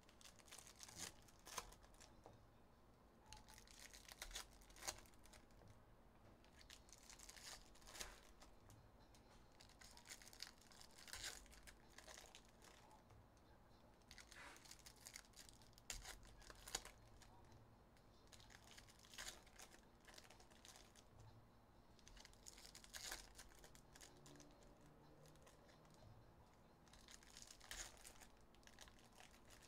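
Packs of Upper Deck hockey trading cards being torn open by hand and their plastic wrappers crinkled, in short, scattered rustles every few seconds.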